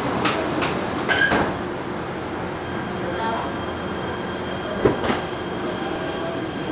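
Interior of a PATH PA5 subway car as the train sets off: a few sharp knocks in the first second and a half, then the steady rumble of the car rolling, with a faint high whine and a single clunk about five seconds in.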